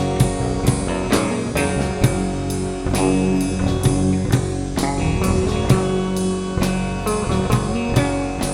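Instrumental passage of a blues-tinged rock song: guitar playing over a drum kit keeping a steady beat, with no singing.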